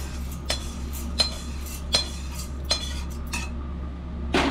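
Metal kitchen utensils clinking: about six sharp clinks, evenly spaced under a second apart, some with a brief ring.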